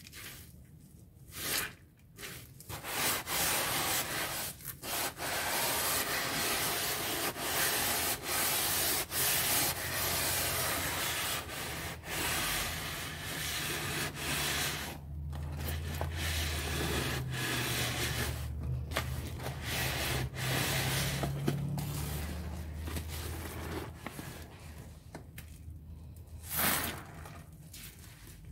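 Sponges loaded with wet Ajax cleanser paste being squeezed and worked by gloved hands: a dense, crackly squelching of paste and foam. It starts quietly, gets louder and busier about three seconds in, and eases off in the last few seconds.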